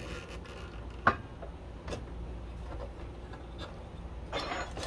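Handling noises from setting up a sliding miter saw, with the saw not running: a sharp click about a second in, a fainter click about a second later, and a short scraping rustle near the end, over a low steady rumble.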